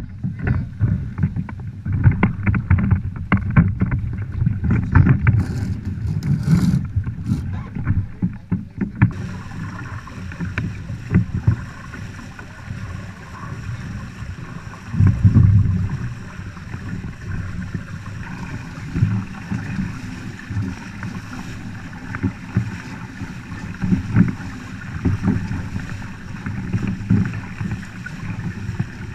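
Wind buffeting the microphone over water rushing along the hull of a Nacra 6.0 catamaran under sail. Sharp clicks and knocks come through during the first several seconds, then a steady hiss of spray sets in, with a louder gust of rumble about halfway through.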